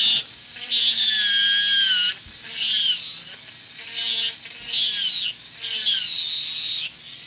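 Dental lab handpiece with a burr grinding acrylic out of a cracked oral appliance, cutting back along the crack line. It runs in about five short bursts, its high whine dipping in pitch during each cut.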